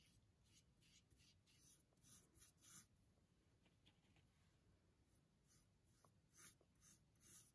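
Faint brushing of a large paintbrush dragging paint along the edge of a stretched canvas: short scratchy swishes about two a second, with a brief pause near the middle.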